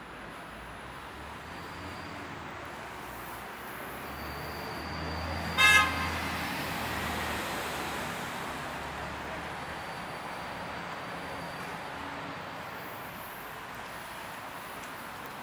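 Steady street traffic with a vehicle passing. About six seconds in comes one short car-horn toot, the loudest sound.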